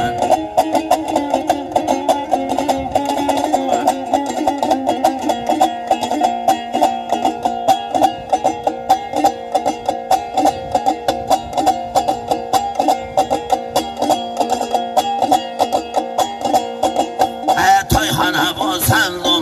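Dombra strummed fast and evenly, its open strings sounding a steady drone under the melody. A man's singing voice comes in near the end.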